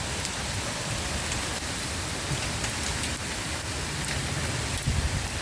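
Hailstorm with rain: a steady dense hiss of falling hail and rain, with scattered sharp ticks of hailstones striking, and a few low thumps near the end.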